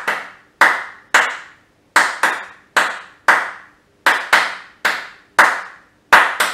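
Hand claps beating out the habanera rhythm: four claps to a bar, spaced long, short, even, even, with the bar repeating about every two seconds. Each clap rings briefly in the room.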